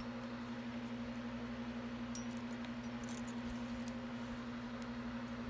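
A few faint light metallic clinks of small jewelry pieces being handled, about two to three and a half seconds in, over a steady low hum.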